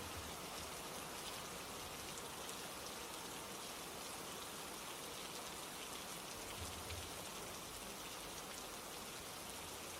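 Steady rain falling, an even hiss with faint scattered drops ticking.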